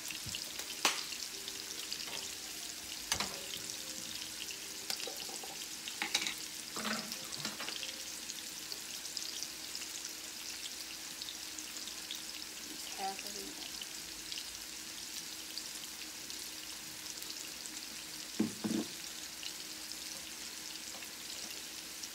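Steelhead trout fillets sizzling steadily in hot oil in frying pans, a continuous crackle. A few short knocks and clicks from handling utensils and a jar beside the pans.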